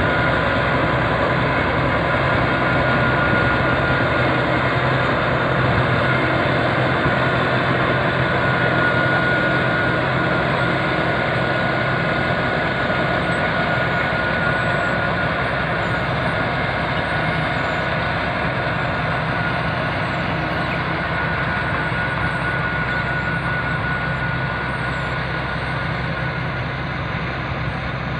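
Shantui SD13 crawler bulldozer's diesel engine running steadily under load as the blade pushes a heap of soil, with a steady high whine over the engine noise. It grows slightly quieter toward the end.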